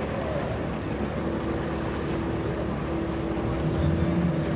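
A boat engine idling steadily, with a steady hum coming in about a second in.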